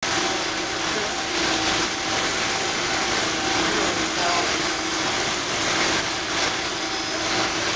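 Matzo-making machinery running: electric motors, dough rollers and conveyor chains making a steady mechanical din with a faint continuous hum.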